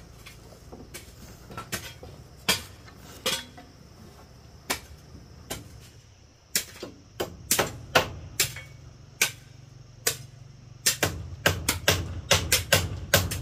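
Hammer blows on wooden boards, as in nailing a plank wall: single knocks spaced about a second apart, then a quicker run of strikes, about three a second, near the end.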